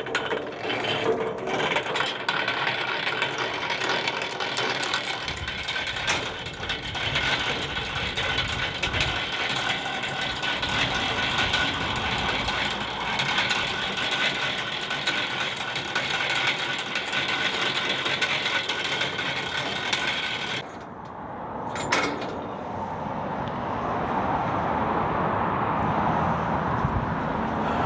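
A geared motor running with a steady whine, which cuts off about 20 seconds in. A click follows, then the even hiss of highway traffic.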